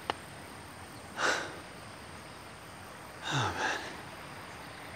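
A man breathing hard from the climb up a steep hillside path: two heavy exhales about two seconds apart, the second a longer voiced sigh that falls in pitch. A short click comes just after the start.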